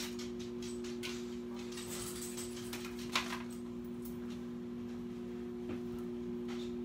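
Microwave oven running with a steady hum, with a few light clicks and knocks from kitchen handling, one about a second in and a sharper one about three seconds in.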